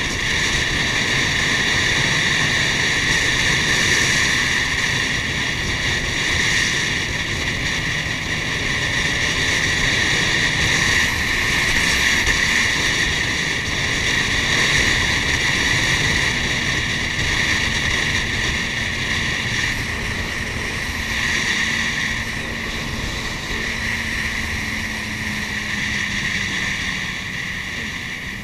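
Jet ski engine running steadily at speed, a high whine over a rushing hiss.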